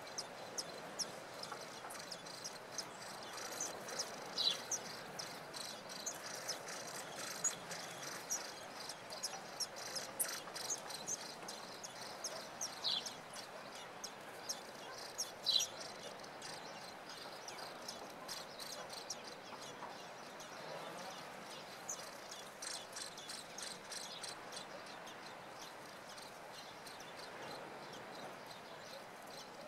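Faint high-pitched chirping in quick runs of ticks, with three short falling whistled calls about four, thirteen and fifteen seconds in.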